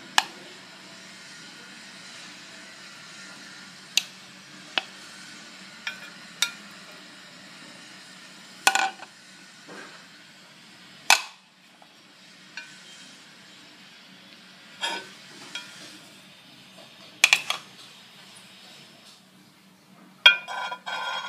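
Scattered sharp clinks and knocks of dishware and wooden chopsticks against a plate as food is served, about a dozen spread out over a faint steady hum, with a quick cluster of knocks near the end as a small ceramic sauce bowl is set down on the plate.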